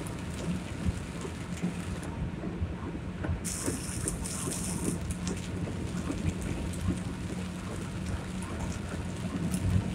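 Heavy rain falling steadily, with many small drop ticks over a constant low rumble.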